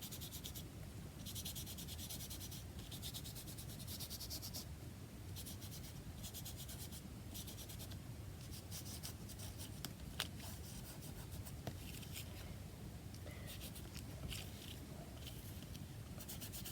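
Short scratchy strokes of paint being rubbed and scrubbed onto a card craft tag, one after another, each lasting under a second, with a light tap about ten seconds in.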